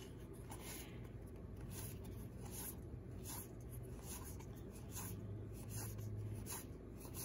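Cardboard baseball cards sliding against each other as they are flipped one at a time from one stack to another by hand: soft, short swishes a few times a second at an uneven pace.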